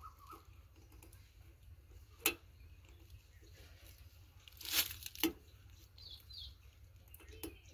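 Cloth rustling and small metal clicks as a chrome exhaust turbo whistle is held in a rag and its set screw is turned with an Allen key: a sharp click about two seconds in, a rustle of cloth a little past halfway, then another click.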